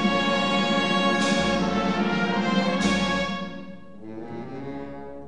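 Wind band playing a funeral march: loud sustained brass chords, struck afresh about a second and again about three seconds in, then dying away into a quieter, softer passage.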